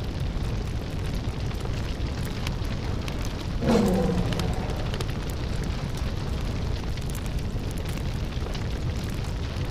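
Sound effects of magical fire: a steady low rumble of flames, with a louder roar that drops in pitch about four seconds in.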